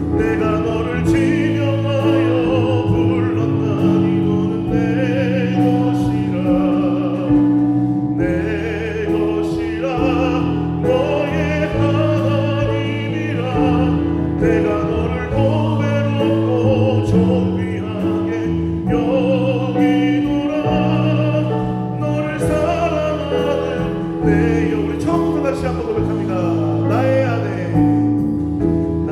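Worship-band music: singers holding wavering, vibrato notes over electric bass guitar, drums and keyboard, with regular drum and cymbal strikes.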